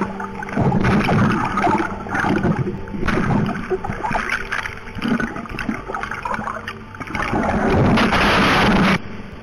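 Water splashing and gurgling around a swimming polar bear's collar camera, in irregular surges. Near the end a louder steady rushing noise sets in and cuts off suddenly.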